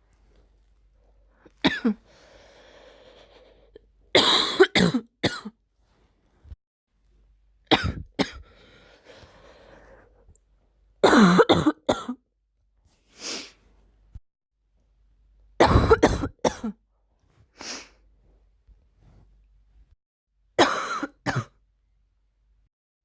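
A person coughing in repeated bouts, each a short burst or quick cluster of coughs, with breathy inhaling between some bouts. It is a cough from a week-long cold with a sore throat, burning in the throat and chest.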